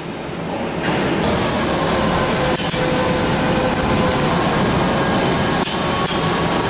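Loud, steady mechanical noise with a few faint steady whines, like machinery running on a factory floor, with a few light clicks.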